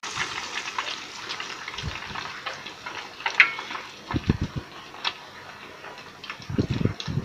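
Hot oil in a wok sizzling and crackling with many small rapid pops as a batter-coated stuffed tofu piece deep-fries. A few short low knocks come about four seconds in and again near the end.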